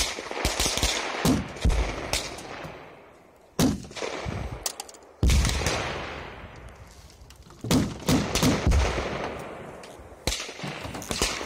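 Special-effects pyrotechnic charges going off in the snow, staged as enemy fire hitting the ground: a string of sharp bangs, some in quick bursts of two or three, each trailing off in a rolling echo.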